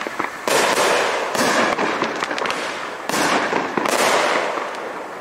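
WINDA Pizza Sampler, a 90-shot (6×15) 1.4G consumer fireworks cake, firing four sharp shots about a second apart. Each is followed by a trailing hiss with fine crackles as the stars burn.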